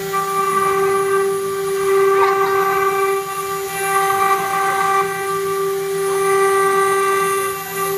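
CNC router spindle running with a steady high-pitched whine while its cutter mills a pocket into a metal mould plate; the loudness swells and dips a little as the tool moves through the cut.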